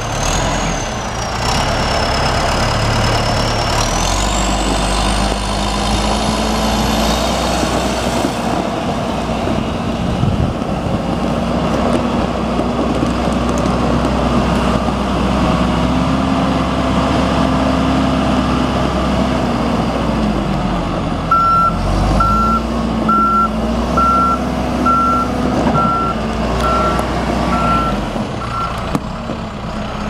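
John Deere 310J backhoe loader's diesel engine running as the machine moves, its pitch rising and falling, with a high whine that climbs over the first several seconds. About two-thirds of the way through, its reverse alarm beeps steadily, about eleven beeps in seven seconds, as it backs up.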